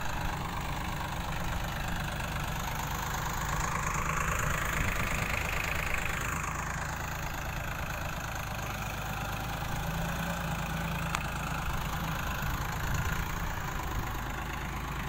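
Sonalika tractor's diesel engine running under heavy load as it tows a sand-laden trailer through soft, muddy ground. It runs steadily and gets a little louder between about four and six seconds in.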